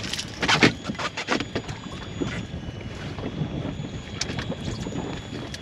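Wind buffeting the microphone over water lapping against an inflatable boat, with a few sharp knocks and clicks in the first second and a half.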